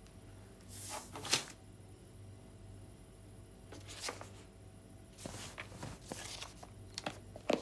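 Soft rustling and crackling of cards or paper being handled on a table, in a few short spells: about a second in, around four seconds, and again between five and seven and a half seconds, ending in a couple of light ticks. A low room hum sits underneath.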